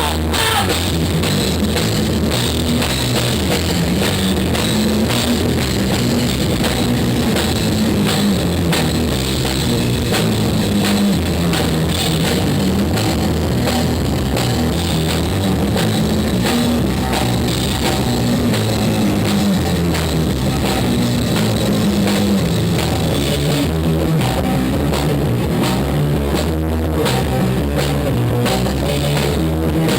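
A band playing rock music: a drum kit keeping a steady beat, with guitar and a moving bass line.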